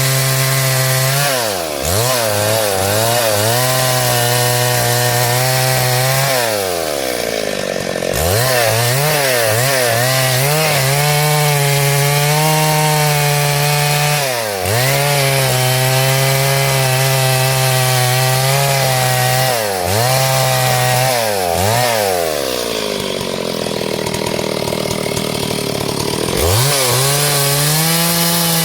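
Gasoline chainsaw cutting through a big log at high revs, its engine pitch dipping and climbing back several times as the chain bogs under load. Near the end the revs fall away for a few seconds, then rise sharply again.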